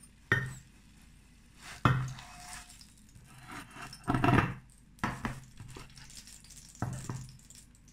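Frying pan and plate knocking and clattering on a wooden table as a pan-cooked egg-and-potato pizza is slid onto the plate: about five separate clunks, the loudest and longest about four seconds in.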